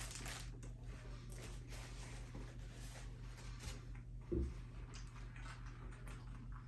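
Faint chewing and mouth sounds of a person eating a sandwich, over a steady low electrical hum, with one brief low sound about four seconds in.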